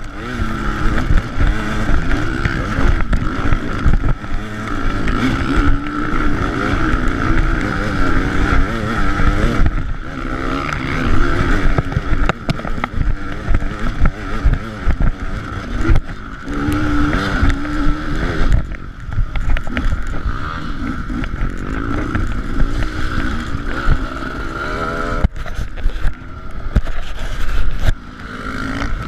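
KTM 300 EXC two-stroke enduro motorcycle engine running under load, its pitch rising and falling with the throttle, with repeated short dips as the rider backs off over rough ground.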